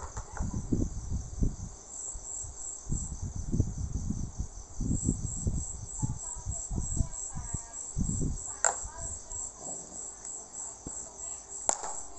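A high, steadily pulsing insect-like chirp, about three pulses a second, with a short pause around four seconds in. Irregular low knocks and bumps sound underneath it.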